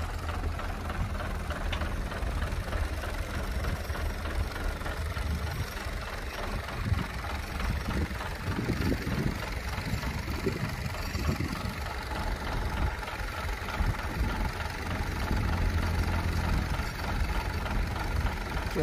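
Heavy diesel engine of earthmoving machinery idling, a steady low rumble with some uneven changes in the middle.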